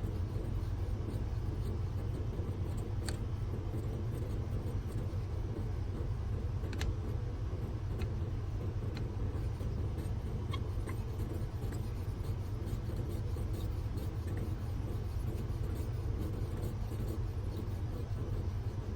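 Steady low machine hum, with a few faint light clicks scattered through the first half.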